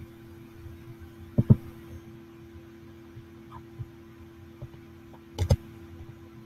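Two quick double clicks, about four seconds apart, typical of a computer mouse, over a steady low electrical hum.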